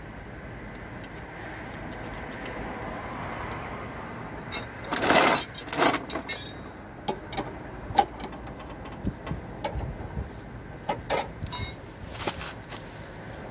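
Metal clanks and knocks from a car's scissor jack and its crank handle: a cluster of loud clanks about five seconds in, then scattered short knocks and clicks, over steady background noise.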